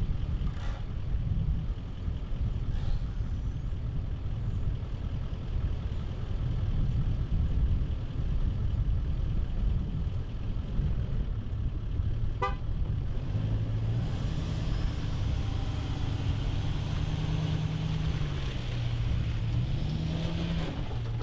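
Pickup truck engine running as it backs a boat trailer down a launch ramp, with a brief high beep about twelve seconds in. From about thirteen seconds a steadier engine tone shifts up and down in pitch as the boat comes off the trailer.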